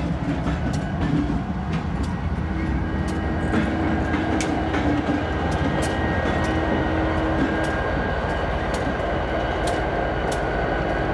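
EMD SD70M diesel-electric locomotives passing close by, their two-stroke diesel engines running with a heavy, steady rumble and a steady hum. Sharp clicks from the wheels crossing rail joints come every second or so.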